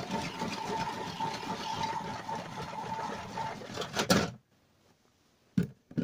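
Casdon Washmatic toy washing machine running with a steady whir as its drum turns, cutting off suddenly a little over four seconds in. A couple of sharp plastic clicks follow near the end as its buttons are handled.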